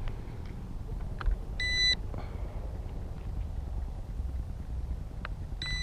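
Toy quadcopter transmitter beeping as it is switched on: one short high beep about a second and a half in and another just at the end, with a few faint clicks of its switches.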